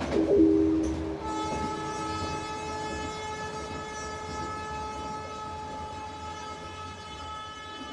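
Recorded train sounds in a soundscape composition: over a low rumble, a horn sounds in two low tones, loudest about half a second in. From about a second in, a single higher, steady horn tone is held on.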